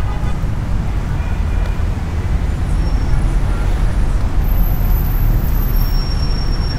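Steady low rumble of passing road traffic, cars and buses.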